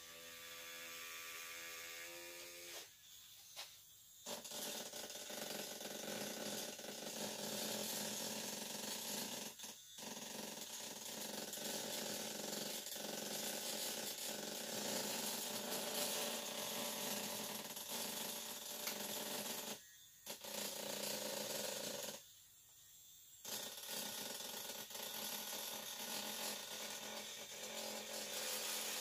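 Small handheld vibrator buzzing and rattling against a silicone casting mould to shake air bubbles loose from the mould walls. An even motor hum stops about three seconds in. A dense rattling buzz follows, with short breaks near ten seconds, twenty seconds and twenty-two seconds.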